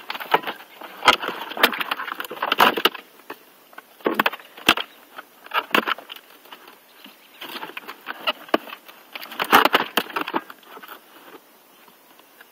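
Handling noise as a white fairing panel is slid onto a recumbent cycle: irregular knocks, clatters and scraping rustles of the panel against the frame. They come in clusters about one to three seconds in, again around four to six seconds, and around nine to ten seconds.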